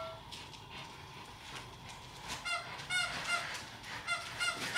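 A squeaker inside a plush dog toy gives a run of short, high squeaks, in two quick clusters from about halfway through, as two dogs bite and tug on the toy.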